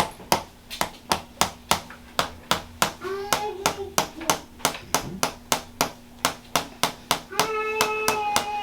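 Hands tapping rhythmically on a patient's body in manual percussion massage, about four or five sharp slaps a second, steady and even.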